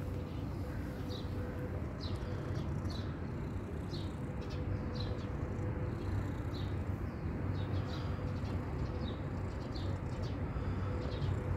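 Small bird chirping repeatedly, short high chirps about once or twice a second, over a steady low background rumble and a faint steady hum.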